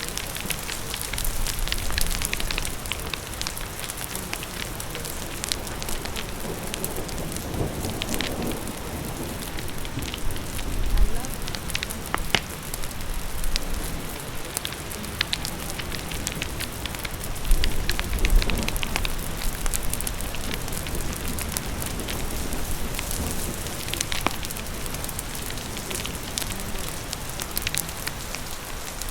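Ambience of steady rain mixed with a crackling fire: a constant hiss of rain with scattered sharp pops and crackles, and a few louder low rumbles.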